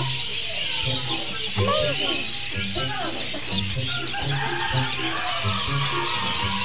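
A flock of chickens clucking, with a curving call from one bird about one and a half to two seconds in, amid a constant patter of many high, short chirps.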